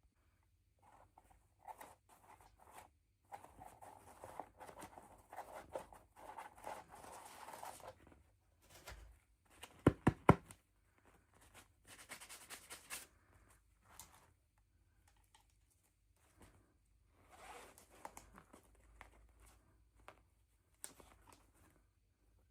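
Packaging rustling and tearing in bursts as a toy is unpacked, with a quick cluster of sharp knocks or clicks about ten seconds in.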